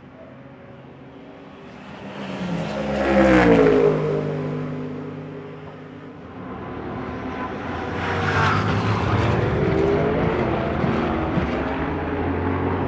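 GT3 race cars passing at speed: one goes by about three and a half seconds in, its engine note dropping in pitch as it passes, then another car comes up and stays loud through the rest.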